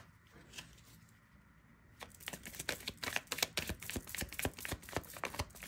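Tarot deck being shuffled by hand: a quick, uneven run of card clicks and slaps starts about two seconds in, after a few soft taps.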